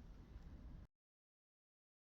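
Near silence: faint room tone that cuts off to total silence under a second in.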